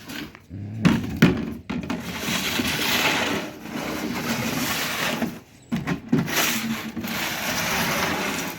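A dog chewing and tearing at a broken toy: crunching and rustling noise, with two sharp knocks about a second in.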